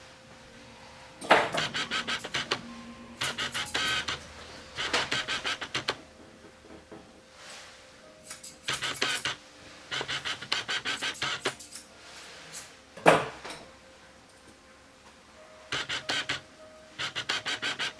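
Grooming scissors cutting a terrier's coat in short runs of rapid snips with pauses between, and one louder single snip about two-thirds through. A faint steady tone sits underneath in parts.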